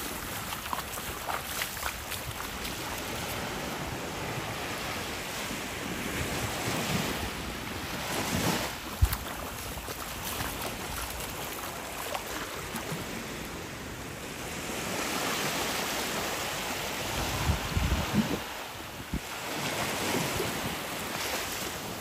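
Small waves lapping and washing up the sand at the shoreline, swelling and fading every few seconds, with wind buffeting the microphone.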